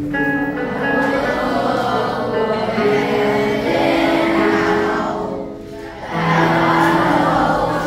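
A class of children singing together along with a karaoke backing track, with a short break between phrases about five and a half seconds in.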